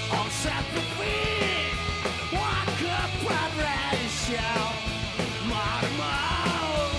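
Live rock band playing loud, punk-style rock, with electric guitars and drums under a vocalist singing and shouting the melody.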